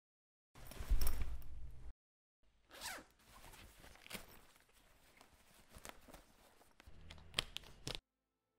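A low thump about half a second in, then several seconds of rustling with sharp clicks and zip-like rasps as a diary is handled. It all cuts off suddenly near the end.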